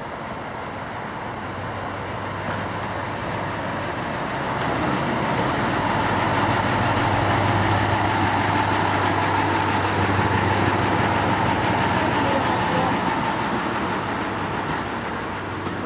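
Diesel shunting locomotive Austins No. 1 running at low speed as it hauls coaches past, its steady engine note growing louder as it draws level about halfway through, then easing off as the coaches follow.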